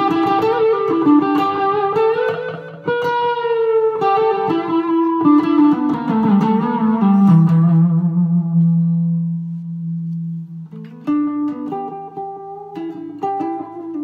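Electric guitar (a 1988 Gibson Les Paul Special fitted with a custom-rewound Kay 'Zippo' pickup) played through an amplifier. It plays single-note lead lines with string bends, then one low note held for about three seconds that slowly fades, then short picked chords near the end.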